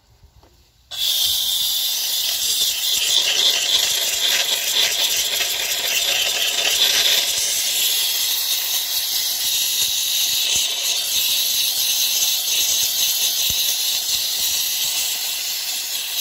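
Steam cleaner jetting steam over an engine: a steady, loud hiss that starts suddenly about a second in.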